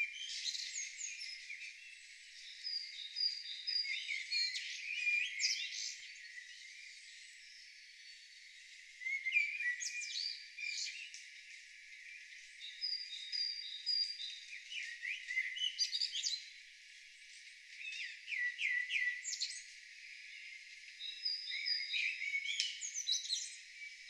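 Several songbirds singing together, with overlapping chirps, quick trills and a few held whistled notes. The song comes in bursts every few seconds with short quieter spells between. The sound is thin and high, with no low sounds under it.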